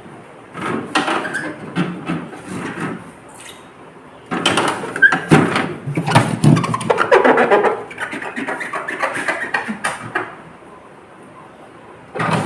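Irregular rubbing, scraping and knocking of things being handled, in two stretches, the second one longer, with a short burst near the end.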